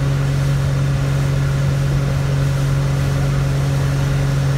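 Motorboat engine running steadily at speed while towing, a constant drone over the rush of water and wind.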